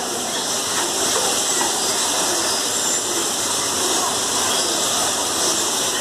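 Steady rushing of running water, an even hiss that does not let up.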